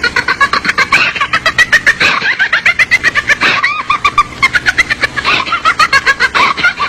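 Creepy doll laughter horror sound effect: a long, rapid, high-pitched cackle of quick repeated 'ha' syllables, several a second, with no break.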